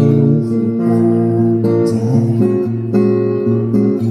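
Acoustic guitar strumming chords in a song, changing chord every second or so, with a singer's voice on one word at the start.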